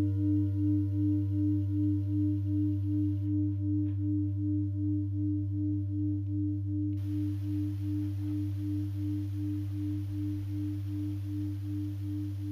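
Singing bowl ringing on after a strike, one long tone with a pulsing wobble about three times a second and a deep hum beneath it, fading slowly.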